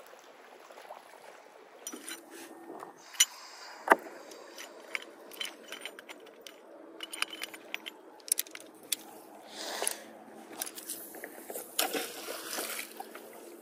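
Irregular clicks, knocks and light rattles as a rope is handled and hauled in by hand over the bow of a small plastic boat.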